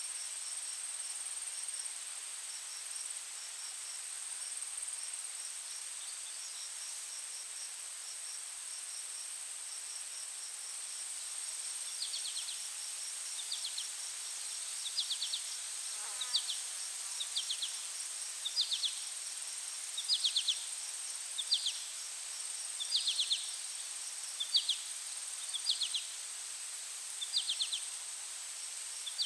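Insects calling: a steady high-pitched drone throughout. From about halfway in, a short pulsed chirp repeats about once a second.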